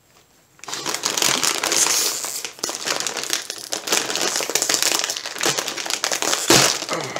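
Corn chip bag crinkling and crackling as it is tugged and pulled open by hand, with a sharper crack near the end.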